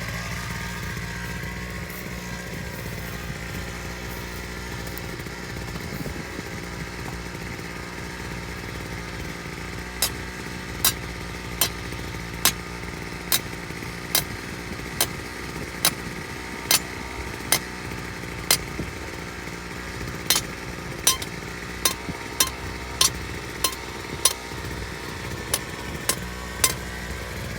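Gas-powered jackhammer engine idling steadily. From about ten seconds in, a run of sharp knocks comes roughly once a second, with a short gap near the middle.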